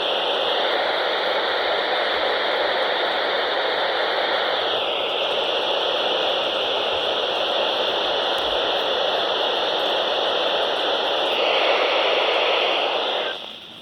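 Weather radio receiver hissing with static while the NOAA Weather Radio transmitter is off the air mid-broadcast. The steady hiss shifts slightly in tone a few times and cuts off suddenly near the end.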